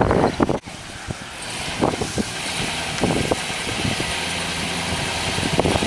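A motor vehicle engine running steadily, growing louder over the first couple of seconds, with scattered short knocks.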